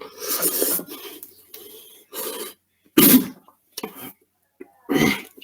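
A person in a coughing fit from spicy ramen noodles: about five rough coughs and splutters in quick succession, the loudest about three seconds in.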